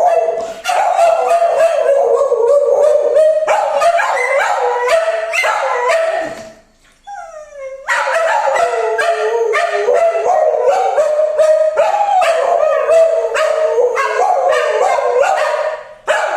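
Dogs howling along to a harmonica playing rapid chords. About six and a half seconds in the playing stops briefly and a single howl slides down in pitch, then the harmonica and howling start again.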